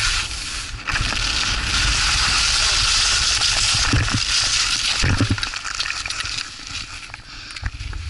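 Skis hissing and scraping over snow during a downhill run, with wind rumbling on the camera microphone. The hiss eases briefly near the end, then picks up again.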